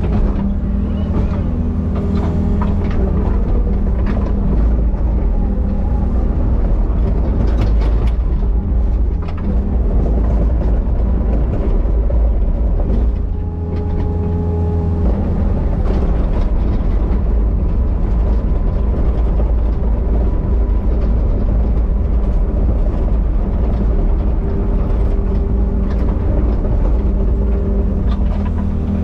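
Excavator's diesel engine running steadily, with scattered knocks and clicks from the machine working. About halfway through, a higher steady tone sounds briefly over the engine.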